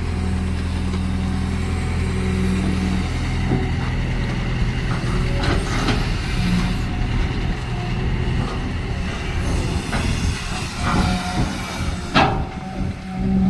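Caterpillar excavator's diesel engine running, steady for the first three seconds, then working with a rougher, changing sound and several sharp metallic clanks and squeals, the loudest about twelve seconds in.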